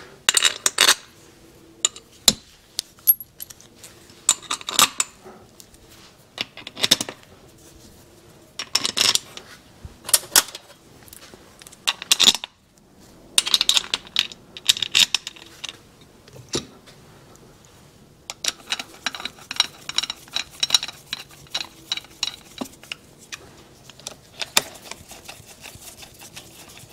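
Small steel screws clinking against each other and against the aluminium clutch cover of a 1975 Suzuki TS250 engine as they are picked out and set in, in scattered sharp clicks and short clatters, with a run of quick metallic clicks from a hand tool from about two-thirds of the way through.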